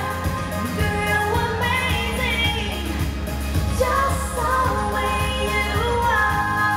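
A woman singing a pop song live, with band accompaniment and a steady bass.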